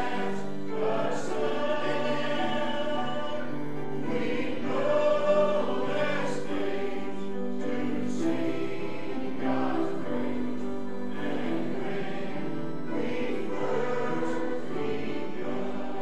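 A choir singing a slow hymn, as background music, with long held chords changing every second or two.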